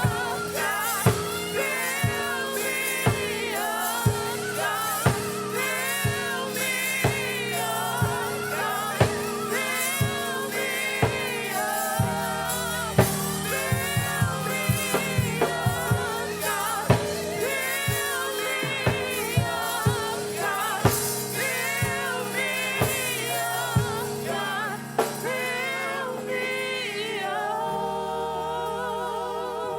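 Live gospel praise music: singers hold long, wavering sung lines over sustained low chords and a drum kit hitting steadily. Near the end the low accompaniment drops away.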